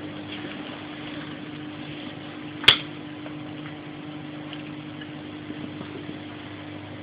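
A steady low hum with a few faint ticks, broken by one sharp click or knock a little under three seconds in.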